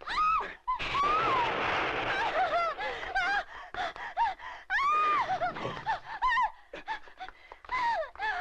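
Frightened cries, gasps and short shouts from a vintage Japanese tokusatsu soundtrack, with a rush of noise about a second in and a long wailing scream about five seconds in.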